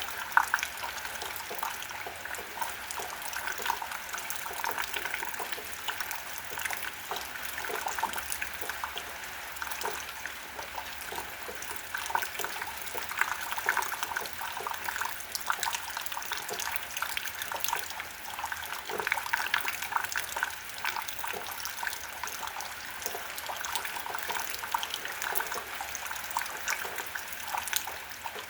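Rain falling steadily: a continuous wash of water with many small drops splashing and dripping.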